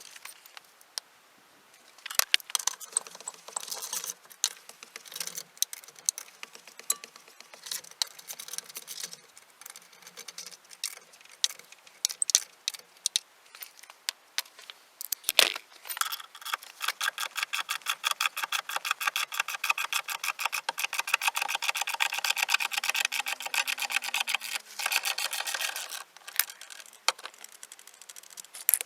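Ratchet wrench clicking as it is worked, with scattered tool clatter. About halfway through comes a long run of rapid, even clicks that stops near the end.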